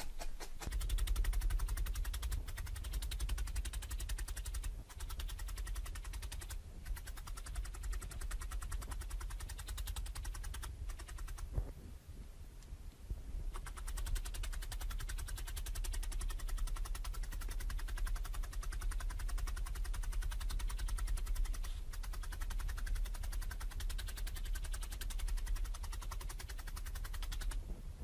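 A felting needle poking wool down through the backing into a dense foam mat, sped up into a fast, continuous run of light taps with a low thud under each. The tapping eases off briefly about halfway through.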